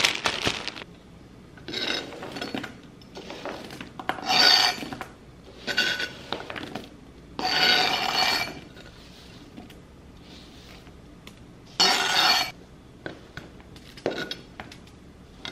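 A chef's knife scraping chopped vegetables and sausage slices off a plastic cutting board onto a foil-lined metal sheet pan. There are a handful of short scrapes with quiet pauses between, each with a light metallic ring as the pieces land on the pan.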